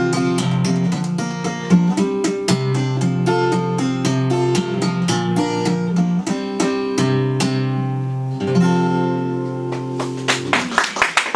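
Acoustic guitar played live, plucked notes over a steady bass line, closing the song on a chord left ringing. Applause breaks out near the end.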